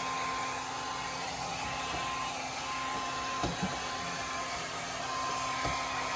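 A hair dryer runs steadily with a thin steady whine over its blowing, heating the sound-deadening mat on a car's floor. A couple of light knocks come about three and a half seconds in, and another near the end.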